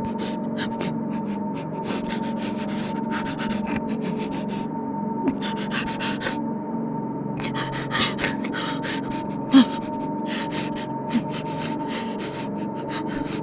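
A woman's rasping, labored breathing acted as a dying person, coming in crackly, scraping runs over a steady low hum.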